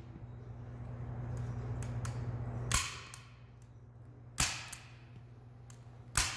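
Duct tape being pulled off the roll and torn, with three sharp rips about a second and a half apart.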